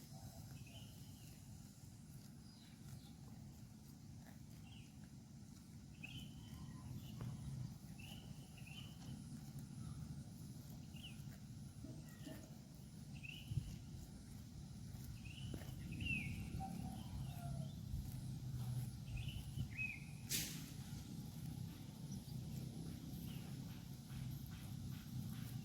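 Cow grazing, tearing and chewing grass with occasional short rips over a low rumble. Short, high bird chirps repeat every second or two, and there is one sharp click about twenty seconds in.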